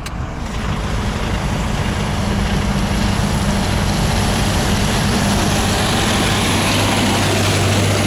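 DAF XF truck's diesel engine at full throttle, hauling a loaded tipper semi-trailer up onto loose, unrolled gravel. It builds over the first couple of seconds, then holds steady and loud with a deep drone.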